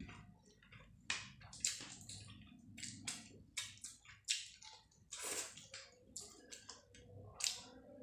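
Close wet chewing and mouth smacks of a person eating rice mixed with dal and fish curry by hand, with soft squishing as the fingers work the rice on the plate. The smacks come irregularly, about two a second.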